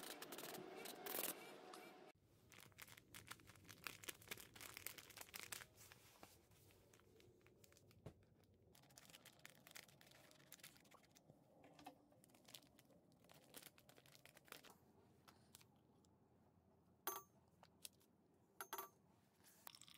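Faint hiss of an aerosol spray-paint can, cutting off about two seconds in. Then a foil coffee packet crinkles and is cut open with scissors, and near the end a metal spoon clinks twice.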